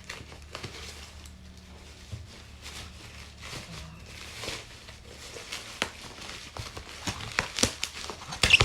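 Parcel packaging being handled and opened: plastic wrapping rustling and crinkling, with short sharp crackles and rips that come thicker and louder near the end.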